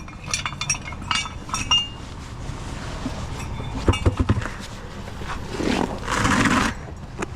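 Metal clinks from tools and parts being handled during a roadside tire change, then a few heavy thumps about four seconds in and a short rush of noise near the end.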